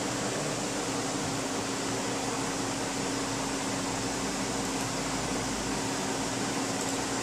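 A fan whirring steadily, with a low hum underneath.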